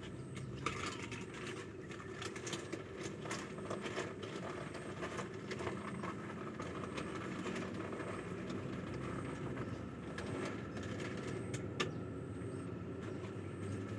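A steady mechanical hum with scattered light clicks and knocks from bowls and food being handled.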